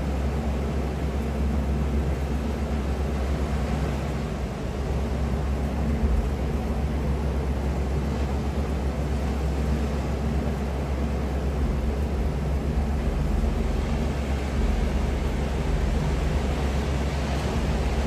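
Steady low rumble of wind and ocean surf, heaviest in the deep bass and unchanging throughout.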